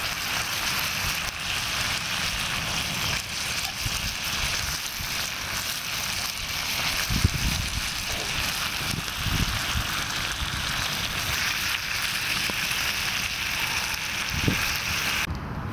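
Bacon frying in melted butter in a frying pan over a small wood-burning fire stove: a steady sizzle throughout, with a few soft knocks as tongs turn the rashers.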